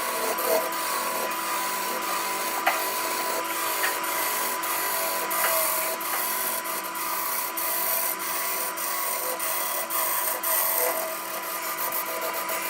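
Wood lathe running with a steady motor hum while a tool or abrasive rubs against the spinning wood, giving a continuous scraping hiss with a few sharp clicks.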